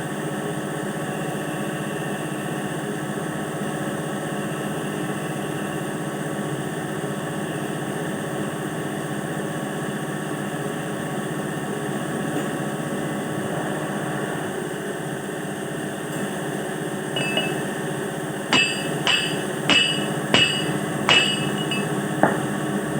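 Steady machine hum, and near the end about six sharp hammer strikes on metal, each ringing briefly, as parts of a well-drilling swivel are knocked into place.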